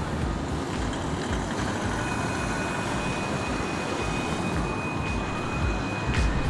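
City street traffic: cars driving through an intersection with a steady rumble of engines and tyres, and a faint rise as one pulls away. A thin steady high tone joins in about two seconds in.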